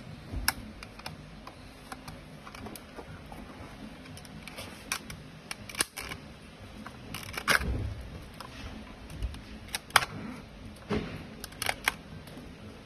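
Irregular sharp plastic clicks and snaps as needle-nose pliers work the clips of a BMW 6 Series dashboard air-vent grille housing, a few at a time with pauses between, the sharpest about ten seconds in.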